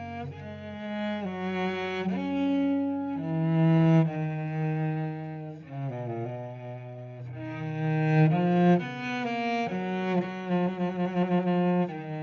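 Slow music on bowed strings, cello among them: long held notes sounding several at a time, the chords changing every second or so.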